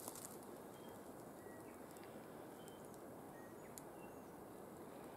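Near silence: quiet forest ambience, a faint steady hiss with a few faint, short high chirps scattered through it.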